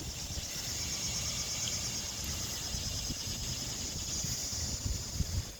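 Insect trilling: a steady, high-pitched, finely pulsing buzz, over a low rumble of wind on the microphone.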